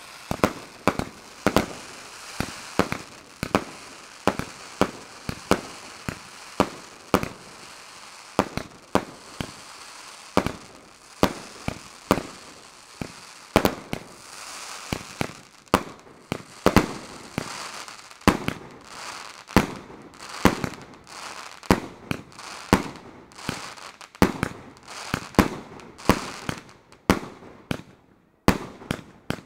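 Aerial fireworks display: shells bursting in a steady run of sharp bangs, about one or two a second, with crackling and hissing sparks between them.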